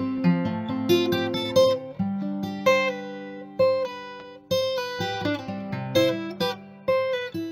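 Background music on acoustic guitar: plucked and strummed notes, each ringing and fading, in a steady picking pattern.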